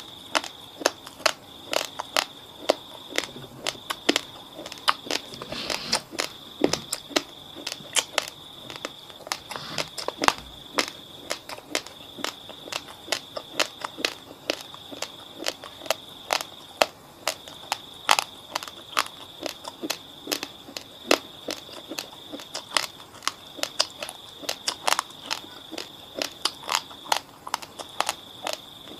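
Raw, fridge-cold basmati rice crunched between the teeth: sharp, crackly crunches several times a second.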